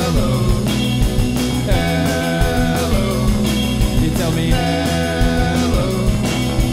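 A rock band playing a song, with guitar and drums keeping a steady beat and a gliding melody line on top.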